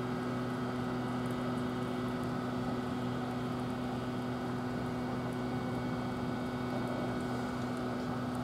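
Steady electrical hum with several held tones over an even hiss, from an electric train's equipment running, with no change in pitch or level.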